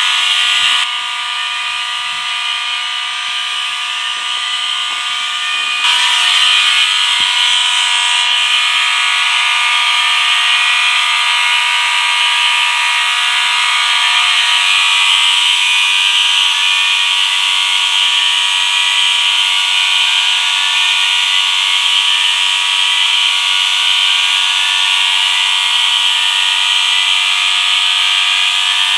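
A large group of fire alarm horns and sounders going off together: a dense layer of steady tones mixed with repeating rising sweeps. The sound dips slightly about a second in and steps back up to full volume about six seconds in.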